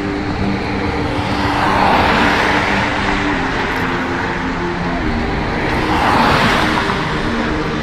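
Two vehicles passing by, one about two seconds in and another about six seconds in, each a swell of noise that rises and fades, over a steady low hum.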